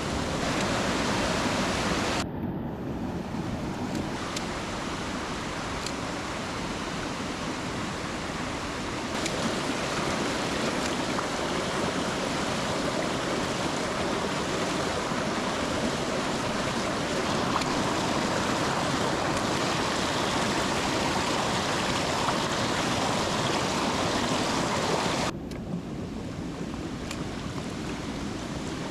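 Rushing water of a mountain stream, a steady noisy rush that shifts abruptly in level and tone a few times: about two seconds in, around nine seconds, and near the end.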